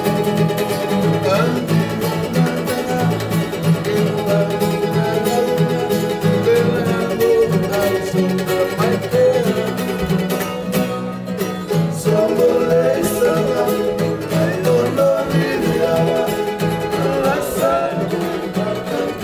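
Live Fijian welcome music: two acoustic guitars strumming chords, with a man's voice singing along.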